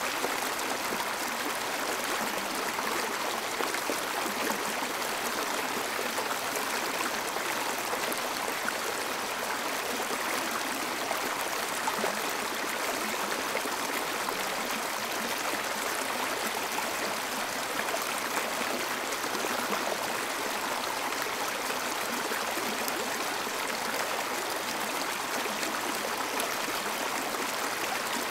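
Flowing water rushing steadily, an even, unbroken wash of sound like a stream or river.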